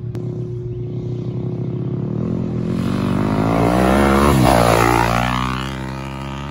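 2021 Yamaha YZ250F's 250cc four-stroke single-cylinder engine running under throttle as the dirt bike approaches, passes close about four to five seconds in and rides away. It grows louder up to the pass, its pitch swings briefly as it goes by, and then it fades.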